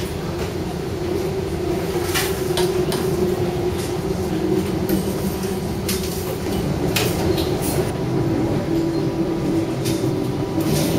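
Light rail tram running, heard from inside the car: a steady hum over a rumble, with scattered clicks and rattles.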